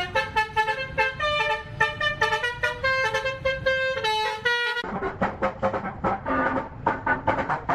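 Indonesian Basuri melodic bus horn playing a quick tune of short pitched notes. About five seconds in it cuts to a reworked version of the tune with a rhythmic musical backing.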